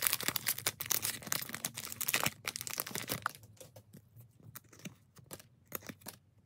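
Foil wrapper of a 1993-94 Skybox Premium basketball card pack crinkling as it is torn open. After about two and a half seconds it turns to softer, scattered rustles and clicks as the cards are slid out of the wrapper.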